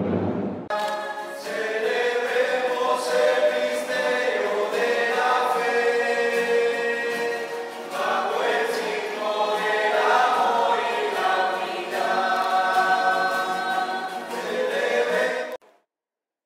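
Choir of voices singing a hymn, cutting off abruptly near the end.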